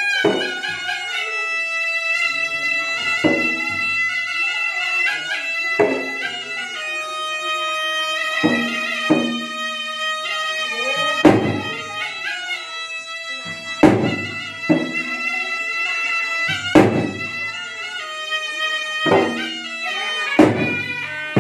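Makassar gendang ensemble: a puik-puik shawm plays a held, reedy melody over two large double-headed gandrang drums struck with hand and stick. Sharp drum strikes fall every two to three seconds, louder in the second half.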